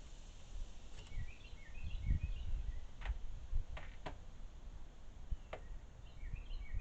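Small birds at a food bowl giving a quick run of short high chirps, with a few sharp ticks and a low rumble underneath.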